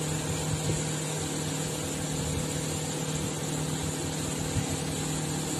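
Steady hum of a running electric machine, with a low tone and a faint high whine held unchanged throughout.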